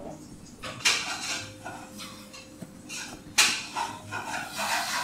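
A latex balloon being blown up by mouth: a series of hard, breathy puffs into the neck of the balloon, with short pauses for breath between them.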